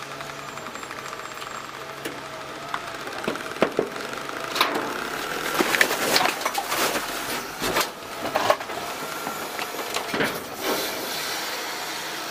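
Automated arm of a DaDee Scorpion side-loader garbage truck tipping a trash cart into the hopper: a run of knocks and clatter as the cart bangs and bags and bottles tumble in, over the steady hum of the truck running. The clatter falls mostly in the middle and ends about a second before the end.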